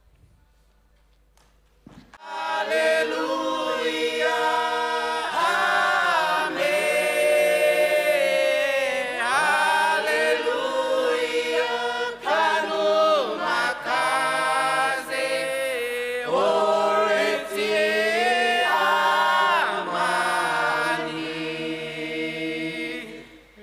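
A group of singers chanting a hymn together in held, gliding notes. The singing begins about two seconds in and fades out near the end.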